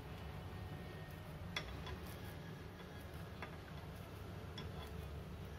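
Wet hands pressing and shaping a sticky mix of poha, peanuts and jaggery syrup in a kadhai: a few faint, light ticks over a steady low hum.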